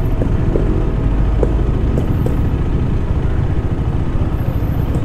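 KTM motorcycle's single-cylinder engine idling with a steady low rumble.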